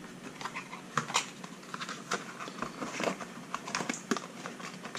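Hands handling and picking at a speed controller's white packaging, giving irregular small clicks, taps and rustles, several a second.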